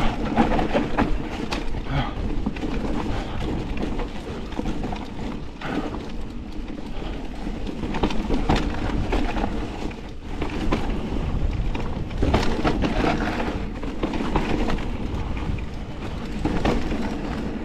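Forme electric mountain bike ridden along a rough dirt trail: tyres rolling and the bike rattling, with repeated short knocks and clatters over the bumps.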